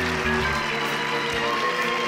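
Theatre pit band playing held chords over a steady bass line, with audience applause under it.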